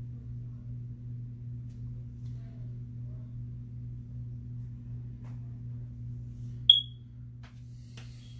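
A steady low electrical hum, with one short, high-pitched electronic chirp near the end that is the loudest sound, followed by a few faint ticks.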